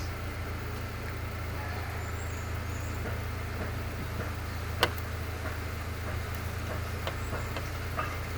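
A steady low mechanical hum, with one sharp click about five seconds in and a few lighter ticks near the end.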